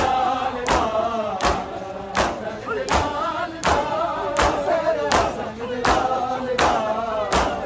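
A crowd of men chanting a noha in unison over sharp slaps of chest-beating (matam), which keep a steady beat about every three-quarters of a second.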